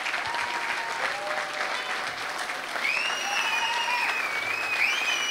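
Audience applauding, a steady dense clapping from a seated crowd. A high, wavering tone rises above the clapping from about three seconds in.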